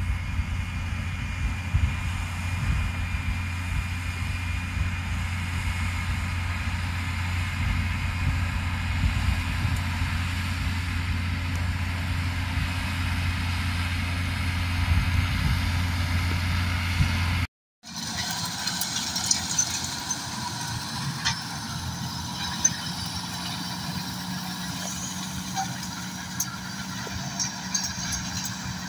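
Farm tractor engine running steadily while it pulls a rotary hay tedder across the field. About two-thirds of the way through the sound breaks off abruptly, and a second tractor engine follows, a little higher in pitch, with scattered light clicks.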